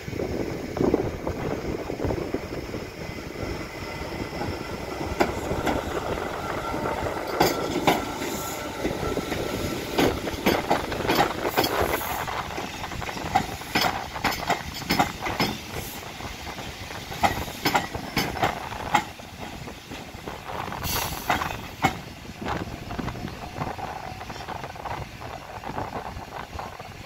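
Class 313 electric multiple unit running slowly into the station, its wheels clicking repeatedly over rail joints through the middle stretch, with a steady whine early on. About 21 seconds in there is a short high hiss or squeal as it comes to a stand, and then it goes quieter.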